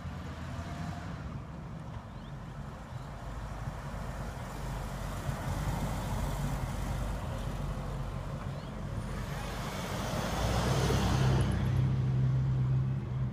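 1969 Ford Mustang GT convertible's V8 engine running as the car drives by on the street, growing louder near the end.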